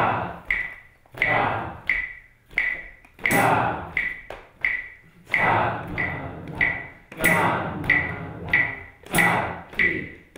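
A struck percussion instrument beaten in a steady slow rhythm, about one and a half strokes a second, each stroke with a short bright ringing ping.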